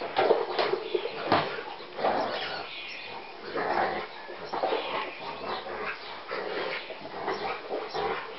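Four-week-old puppies yapping and whining in many short, irregular calls.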